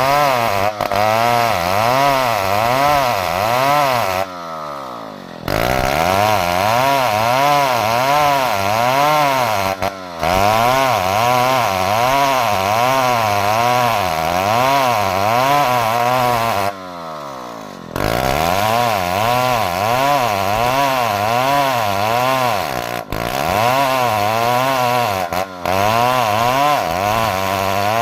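Chainsaw engine running loud under load, its pitch wavering up and down about once a second. Twice the revs drop sharply and then climb back up, about 4 seconds in and again near 17 seconds.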